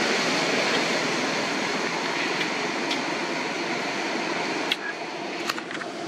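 Steady rushing noise of road traffic, slowly fading, with a few faint clicks near the end.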